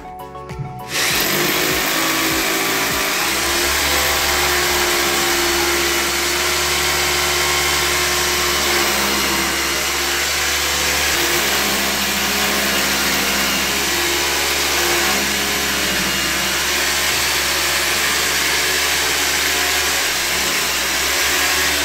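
Corded electric drill boring holes into a plastered masonry wall, starting about a second in and running steadily without a break.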